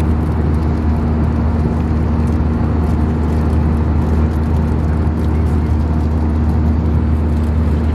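Jet airliner engines heard from inside the passenger cabin: a loud, steady drone with a constant low hum.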